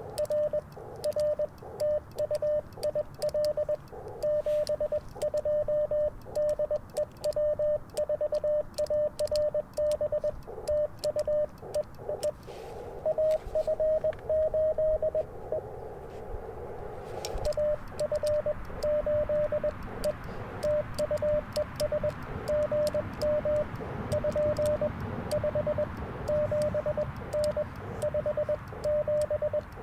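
Morse code (CW) tones of about 600 Hz keyed on and off from an Icom IC-705 ham radio's speaker, over receiver hiss on the 40-metre band. A steadier tone holds for a couple of seconds about halfway through, and the band hiss grows louder after that. Faint clicks sound above the tones.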